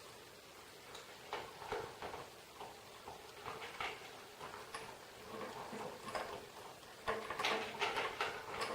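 Scattered small clicks, taps and rattles of hands working on snare drum hardware and snare wires, coming thicker and louder in the last couple of seconds.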